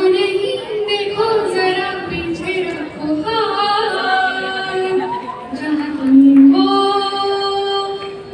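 A woman singing solo into a microphone, carried over a hall's sound system, with long held notes and slides between pitches.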